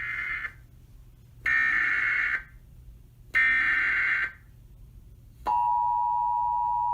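Emergency Alert System header: about-one-second bursts of SAME digital data tones, three in all with roughly a second between them, then about five and a half seconds in the steady EAS attention tone begins.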